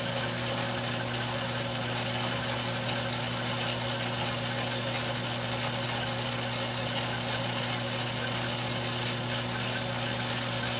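Metal lathe running steadily, an even motor hum, while the cutting tool turns a heel on a .32 caliber bullet held in a collet.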